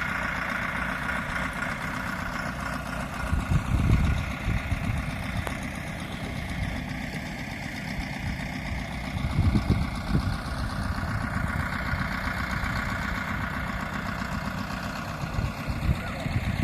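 An engine running steadily, with low rumbling swells about four seconds and ten seconds in.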